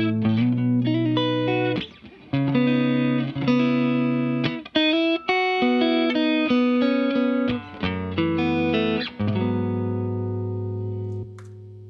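Clean Fender Stratocaster electric guitar through a Vox AC30 amp and a Keeley 4-knob compressor with its sustain turned up, playing chords and picked notes. The last chord rings out long and even before dropping away near the end.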